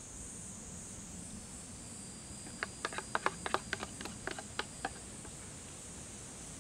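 A quick, irregular run of about fifteen light metallic clicks over two seconds in the middle: utensils knocking against the aluminium mess tin and metal plate while the pasta is served. A steady high insect buzz goes on underneath.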